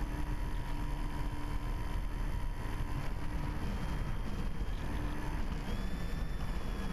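Multiplex FunCub electric RC plane in flight, heard from its onboard camera: the brushless motor and propeller whine steadily under heavy wind rush over the microphone. A high whine rises a little in pitch near the end.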